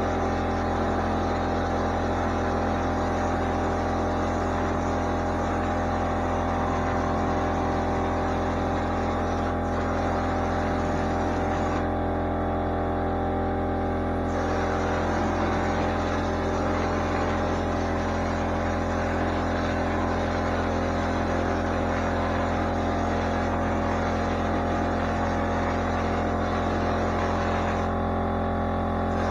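Air compressor running steadily with a constant hum, under the hiss of a drywall texture hopper gun spraying joint compound; the hiss cuts out briefly about halfway and again near the end, as the trigger is let go.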